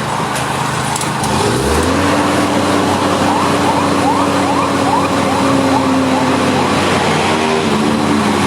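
Heavy road-works machine engine running loud, its pitch stepping up about a second and a half in and then holding steady under load.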